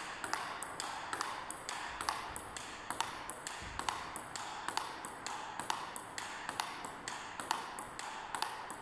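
Table tennis rally of quick backhand blocks with a penhold pips-out bat: the celluloid ball clicking off the bat and bouncing on the table in a steady, fast rhythm of about four clicks a second.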